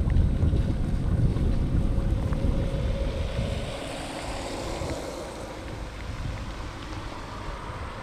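Distant Airbus A320 jet engines on the runway, mixed with gusty wind buffeting the microphone. The wind rumble is strongest in the first half and eases off after about three seconds.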